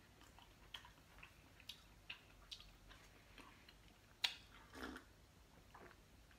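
Faint close-up chewing and wet mouth clicks from someone eating, with one sharper click about four seconds in.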